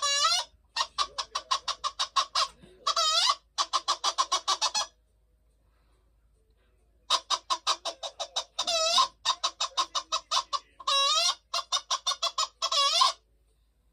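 Hen cackling: fast runs of clucks, each run ending in a drawn-out, pitch-bending squawk. It comes in two bouts with a pause of about two seconds between them.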